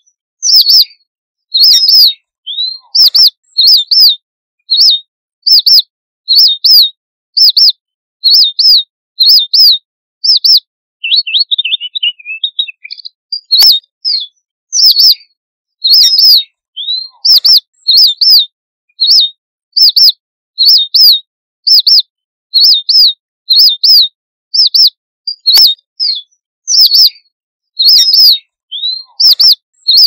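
Red avadavat (strawberry finch) giving its high, thin flock contact call over and over, about once a second, mostly as two quick notes. About eleven seconds in comes a brief run of lower, faster twittering notes.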